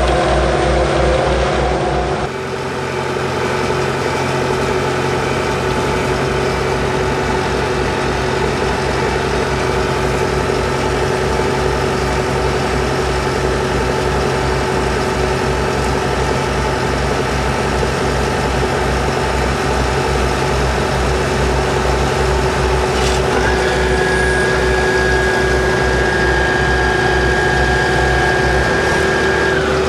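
Heavy diesel engine running steadily with an even low throb; the sound changes abruptly about two seconds in, and a steady high whine joins it near the end.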